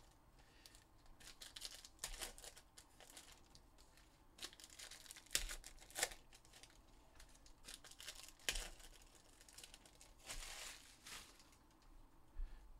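Panini Prizm foil card-pack wrappers being crinkled and torn open by hand, with cards handled between packs. The sound comes in faint, short, irregular bursts.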